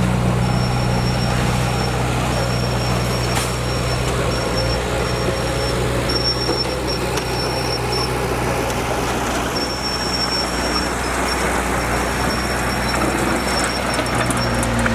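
Diesel engine of heavy earth-moving machinery running steadily, a low, even drone.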